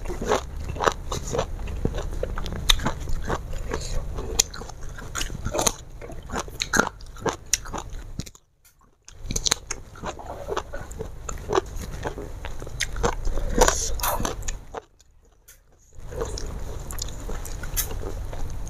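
Close-up crunching bites and chewing of raw vegetables, a dense run of irregular crisp crackles. Twice the sound drops out briefly to near silence, a little before halfway and again about three-quarters through.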